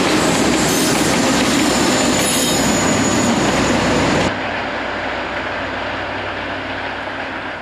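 SNCF BB 66000 diesel-electric locomotives passing close with a freight train: engines running and wheels rolling, with a high-pitched wheel squeal. About four seconds in, the sound cuts abruptly to a quieter, steadier diesel locomotive rumble.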